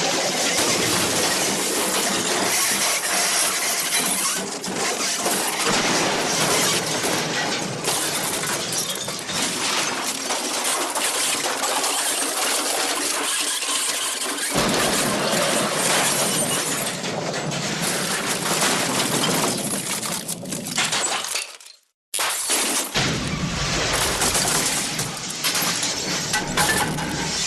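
Glass shattering and breaking crash sound effects, a dense continuous run of smashing that cuts out to silence for about a second around 22 seconds in, then resumes.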